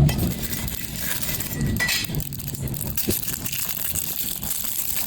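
Slime being squished and kneaded by hand, a dense crackling of many small clicks and pops.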